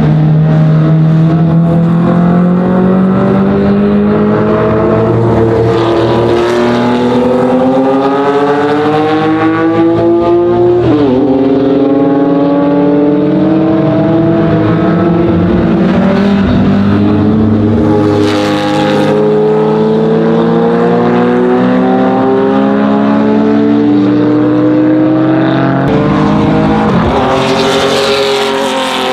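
Historic racing car engine at full throttle, its pitch climbing steadily for long stretches and dropping sharply two or three times at gear changes.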